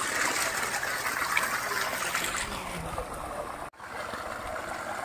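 Water from a tubewell pipe gushing and splashing steadily into a concrete tank. The sound drops out for an instant about two-thirds of the way through.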